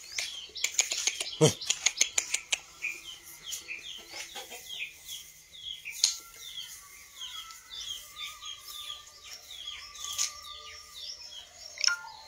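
Small birds chirping over and over, short high chirps coming several times a second, with a few clicks and a single thump about one and a half seconds in.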